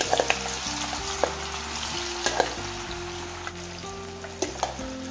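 Boiled baby potatoes frying in hot oil in a metal kadai: a steady sizzle with scattered sharp pops and clicks as a spatula stirs them.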